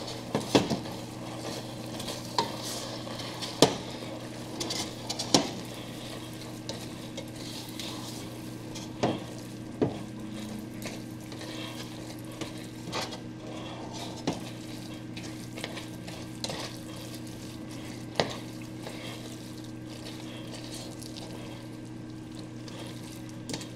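A slotted spoon stirring spaghetti, shredded chicken and cream cheese in a hot pot, with sharp knocks of the spoon against the pot now and then. Underneath runs a steady low hum and hiss.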